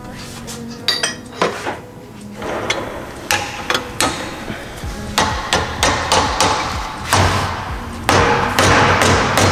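Hammer blows on metal wheel bearing parts: a run of sharp, irregular strikes, sparse at first, then coming closer together and louder from about halfway on.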